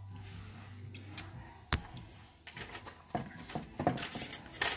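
A string of small hard clicks and taps on a work table: one sharp click about two seconds in, then a quicker run of light taps over the last two seconds.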